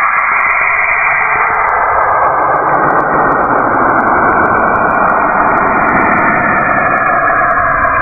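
Sonified recording of Saturn's radio emissions, electromagnetic waves converted into audible sound: a steady, dense hissing rush with faint wavering tones in it, growing fuller and deeper from about three seconds in.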